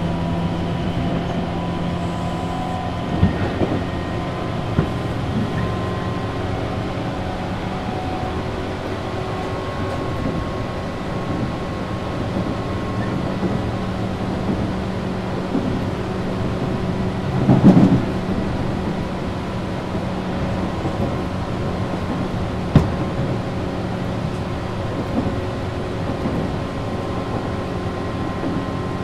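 Tobu 8000 series electric train running at speed, heard from inside a motor car: steady traction-motor hum and wheel-on-rail rumble, with a few sharp clacks over rail joints and a brief louder burst of rail noise partway through.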